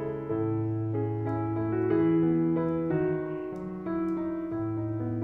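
Background piano music, with notes held about half a second to a second each over low sustained bass notes.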